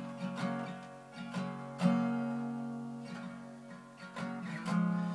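Acoustic guitar strummed in an unhurried pattern, each chord left to ring and fade between strokes, with the heaviest strum about two seconds in.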